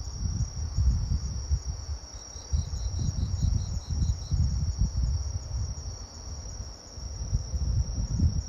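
Night insects chirping: a steady high trill, with a run of about ten quick chirps starting about two seconds in. Underneath is a louder low rumble that rises and falls.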